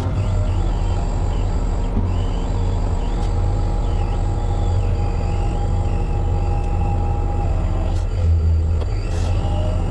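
Truck crane's diesel engine running steadily under load during a lift, with a continuous deep hum and a steady whine above it.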